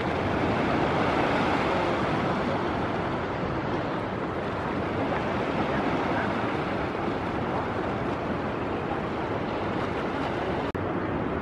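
Ocean surf: waves breaking and washing in a steady rush of noise, with a very brief dropout near the end.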